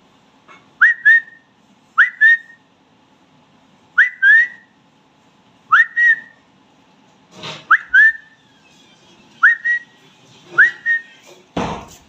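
Indian ringneck parakeet whistling: seven short double whistles, each a quick upward sweep followed by a second note, repeated every one and a half to two seconds. A brief noisy knock-like sound comes near the end.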